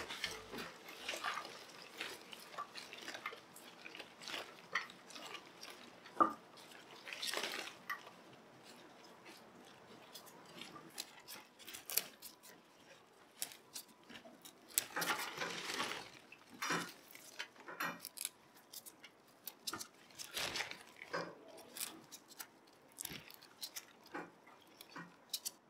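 Irregular light clinks, taps and short rustling scrapes of hands handling small hard objects, with a few longer rustles spread through.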